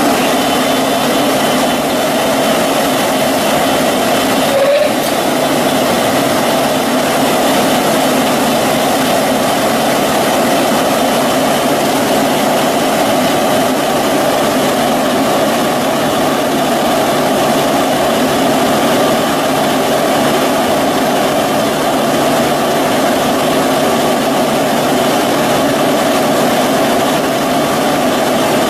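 Industrial machinery running steadily with a constant hum and hiss, with one brief click about five seconds in.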